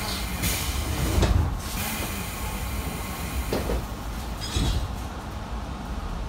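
Inside a Tobu 10000 series electric train car: a steady low rumble and hum from the train's equipment, broken by several short hissing bursts and a low thump about a second in.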